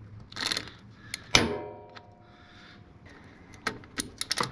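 Socket wrench being worked onto a motorcycle transmission drain plug: one sharp metallic clank about a second and a half in that rings briefly, then a run of quick clicks near the end.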